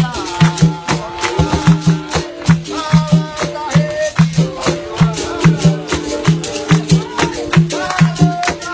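Capoeira Angola roda music: voices singing over a berimbau and a shaken rattle, with a quick repeating low beat and sharp percussive clicks.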